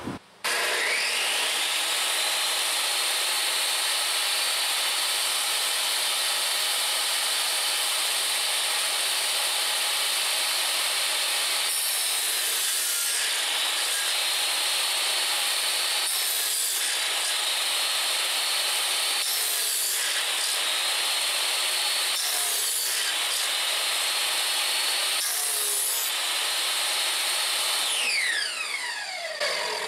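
DeWalt jobsite table saw with a dado stack: the motor starts and spins up to a steady high whine, then dips about five times as the dado stack cuts half-lap notches through the boards. Near the end it is switched off and winds down with a falling whine.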